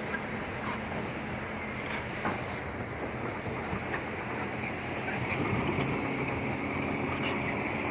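Bulldozer's diesel engine running steadily, with a dense rumbling noise and a few faint clicks.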